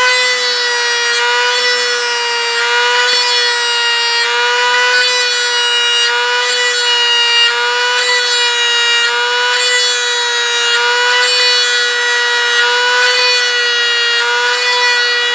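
Dremel rotary tool spinning a brass tube pressed into a primed model-jet skin to mark rivets: a steady high whine whose pitch dips slightly each time the tube bears on the surface, with a faint scraping of the tube on the paint.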